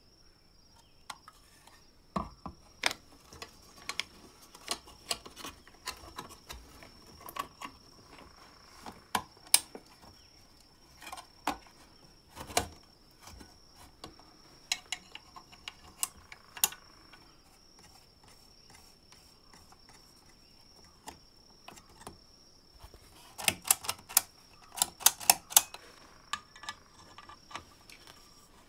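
Small metal clicks, snaps and taps as the parts of a restored emergency lamp (painted steel housing, switch assembly, chrome reflector bezel) are fitted together by hand, with a quick run of clicks near the end.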